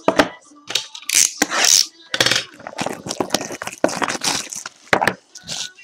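Trading cards being handled close to the microphone: an irregular run of rustling, crinkling and small clicking noises.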